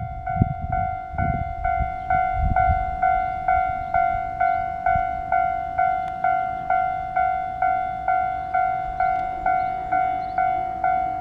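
Railway level crossing alarm ringing, a repeated clanging tone at about two strikes a second, each strike fading quickly.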